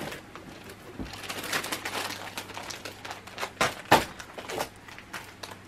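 Plastic packaging crinkling and rustling as it is handled, with scattered small crackles and a sharper crack about four seconds in.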